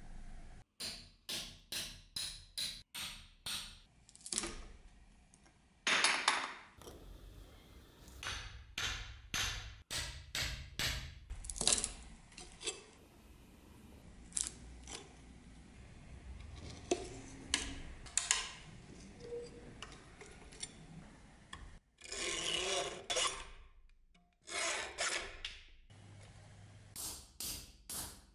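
Rasping scrape and rub strokes on a rusty knife and its wooden handle. A quick run of short strokes, about three a second, comes first, then longer drawn-out strokes with pauses between them.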